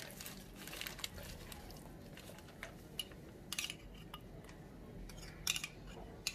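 Faint wet handling sounds of gloved hands pouring and rubbing a thick marinade into a raw whole chicken, with a few light clicks and taps.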